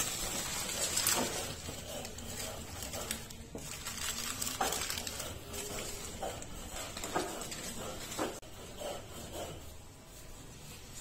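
Food-preparation handling sounds: light rustling of plastic spice packets and scattered small knocks and clatter of pots and utensils, with faint voices in the background.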